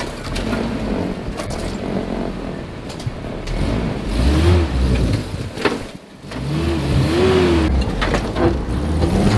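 1984 Toyota pickup's fuel-injected 22R-E four-cylinder engine revving up and down as the truck crawls a trail, the revs rising and falling twice in the second half. Brush scrapes against the truck's body throughout.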